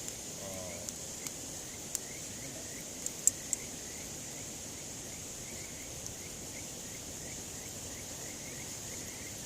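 Campfire wood crackling, with about six sharp pops in the first four seconds, the loudest about three seconds in. Behind it runs a steady high insect chorus with small chirps repeating.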